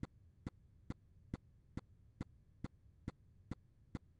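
Faint, evenly spaced ticks, a little over two a second, over a low hum.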